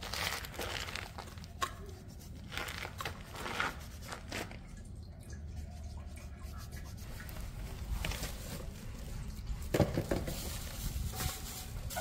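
Small fuel-filter water-separator parts being washed by hand in a steel bowl of diesel: sloshing and scrubbing, with scattered light clinks against the bowl and one sharper knock near the end.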